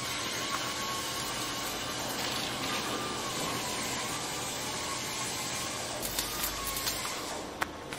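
Onboard sound of an FTX Kanyon RC crawler driving: its electric motor and gears whine steadily, the pitch wavering slightly, over a steady hiss. There are a few clicks and one sharp knock near the end.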